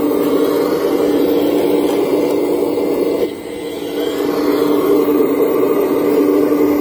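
Radio-controlled excavator's motor running with a steady hum, easing off briefly about three seconds in as the digging arm works.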